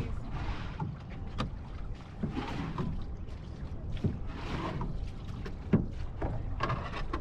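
Water lapping and slapping against the hull of a drifting outrigger canoe, in short swishes about every two seconds, with a couple of sharp knocks against the boat, the loudest late on. Light wind rumbles on the microphone.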